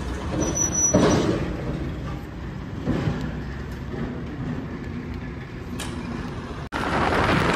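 Steady low rumble of vehicle traffic, with a couple of short knocks from handling at the scooter's fuel filler about one and three seconds in. Near the end the sound cuts abruptly to the louder noise of the scooter being ridden.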